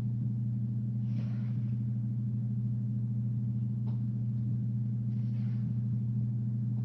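Steady low electrical hum, with two faint soft noises and a small click about four seconds in.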